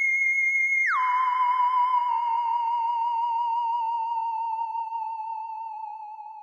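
A single electronic, theremin-like tone: it holds a high pitch, about a second in slides down by about an octave, then wavers slowly lower and fades out near the end.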